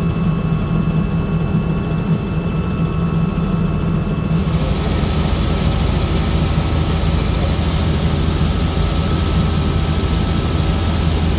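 Helicopter engine and rotor noise heard from inside the cabin: a loud, steady drone in flight. About four and a half seconds in, a hiss rises over it.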